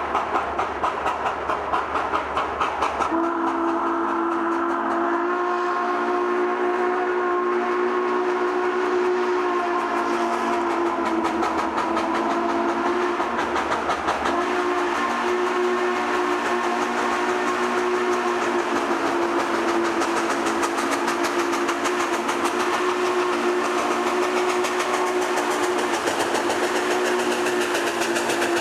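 2-8-0 steam locomotive No. 734 hauling a freight, its exhaust beating rapidly. From about three seconds in, its chime steam whistle is held in long blasts, broken briefly twice.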